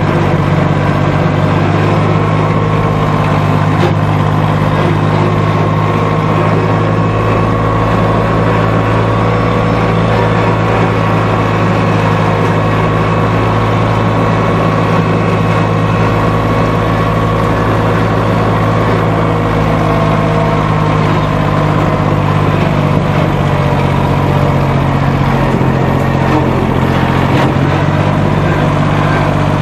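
Lawn mower engine running steadily at a constant speed, loud and close.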